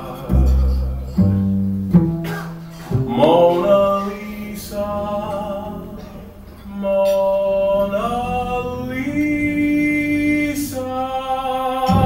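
Live jazz ballad, closing bars: a male voice holds long wordless notes with vibrato over piano and upright bass. Deep bass notes sound in the first two seconds.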